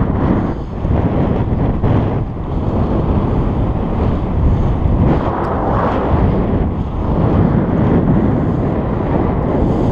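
Loud wind noise buffeting a GoPro's microphone on a moving bicycle, an uneven rush that swells and dips every second or so.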